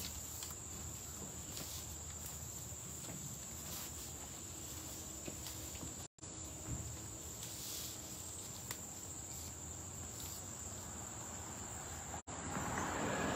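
Steady, high-pitched insect chorus droning on a summer day, over faint low background noise. The audio cuts out for an instant twice, and a louder hiss comes in near the end.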